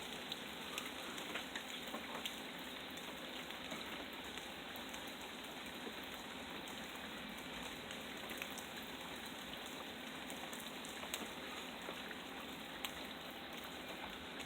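Steady rain falling, a continuous hiss with scattered faint drips and taps.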